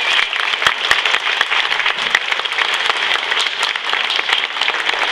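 Small audience applauding, with separate hand claps standing out in the patter, at the end of a song.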